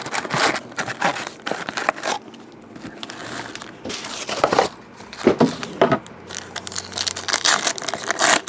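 Trading card pack wrappers crinkling and tearing in irregular bursts as packs are opened by hand.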